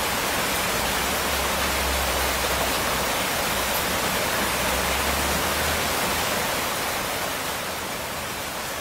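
Steady rain falling, an even hiss. A low hum runs underneath and stops about six seconds in, after which the rain is a little quieter.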